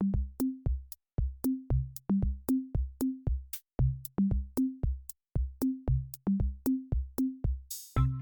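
Electronic background music: a drum-machine beat of kick and snare hits, about three a second, with a short whooshing sweep near the end as sustained synth and bass notes come in.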